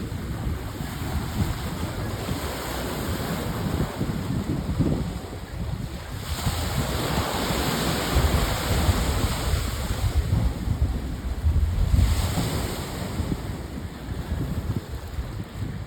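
Wind buffeting the microphone in gusts, with a broad rushing hiss that swells about six seconds in and eases after about twelve seconds.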